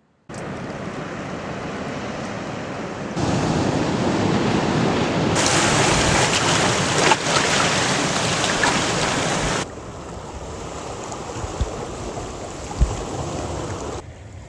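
Ocean surf washing on a beach, with wind on the microphone. It comes as several short clips cut together, so the noise jumps in level at each cut and is loudest in the middle.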